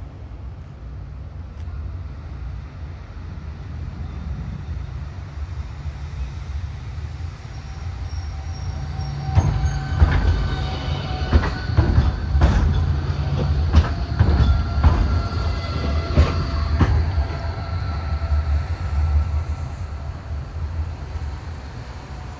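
Train running on rails: a steady low rumble, with a run of clanks from the wheels and track in the middle and faint squealing tones over them.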